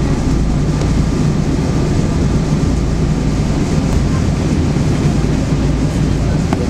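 Steady cabin noise inside a Boeing 777-200ER taxiing after landing, its Rolls-Royce Trent engines at low thrust: a low, even rumble with a faint steady whine above it.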